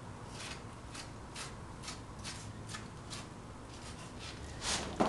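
Short cutting and tearing strokes, about two a second, as the skin is worked off a large hanging sturgeon by hand and knife; a louder stroke ending in a sharp click near the end.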